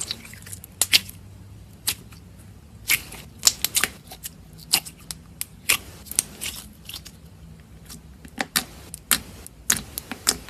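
Slime being squeezed and stretched by hand, giving irregular sharp clicks and pops in clusters.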